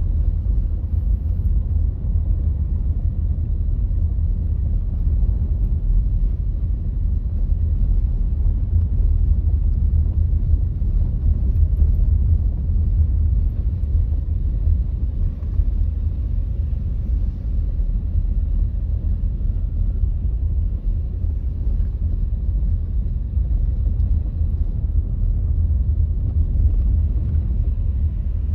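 Car being driven at a steady pace: an even, low rumble of engine and road noise that holds steady throughout.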